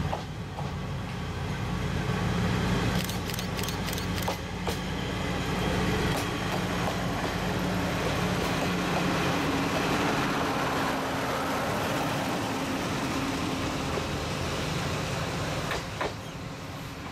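Isumi Railway KiHa 52 and KiHa 28 diesel railcars, with their DMH17-series engines, passing close by: a steady low engine hum, a quick run of wheel clicks about three to four and a half seconds in, then rolling noise that fades near the end as the train moves off.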